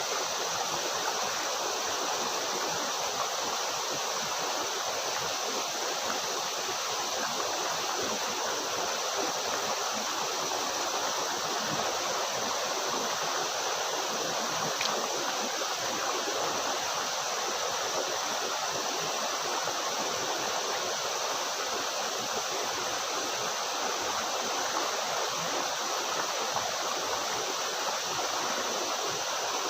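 Waterfall water rushing into a stream, a steady unbroken noise.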